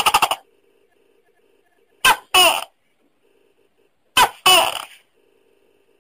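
Tokay gecko calling: a rapid rattling chuckle ends just after the start, then two loud two-note 'to-kek' calls about two seconds apart, each a short first note followed by a longer one that falls in pitch.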